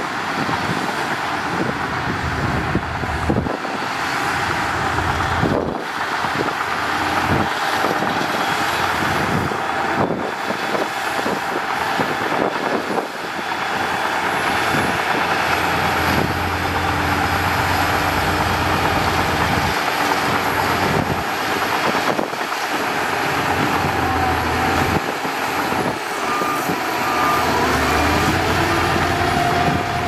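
Shantui DH17C2 crawler bulldozer's diesel engine running steadily under load as it pushes soil, with the clanking and rattling of its steel tracks and blade.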